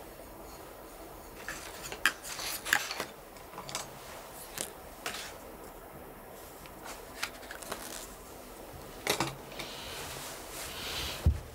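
Desk-work sounds: a pencil tapping and scratching on paper and book pages rustling, scattered irregularly, with a sharp knock near the end.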